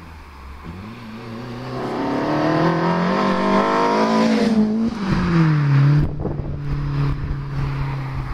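BMW M3 E30 Sport Evolution's four-cylinder engine through a custom stainless steel sport exhaust, revved up from idle in one long rise of about four seconds, then falling back quickly to a steady idle, with some crackle as the revs drop.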